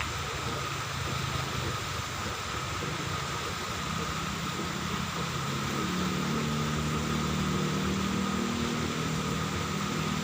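Steady mechanical drone, like an engine or pump running, with a constant thin high tone over it and low hum tones that shift slightly about halfway through.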